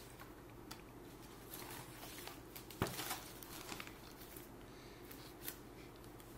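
Quiet room tone with a steady low hum, broken by a few faint, scattered clicks; the sharpest comes about three seconds in.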